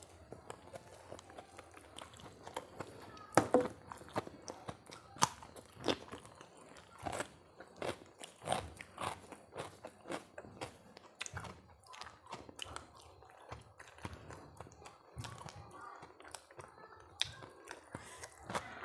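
A person eating crunchy food close to the microphone: irregular crisp bites and crunches with wet chewing between them, the loudest crunch about three and a half seconds in.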